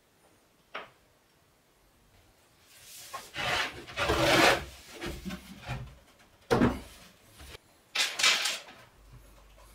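Chipboard cabinet panels being handled and shifted on a workbench: a light click, a stretch of wood scraping and rubbing, a knock, and another short scrape near the end.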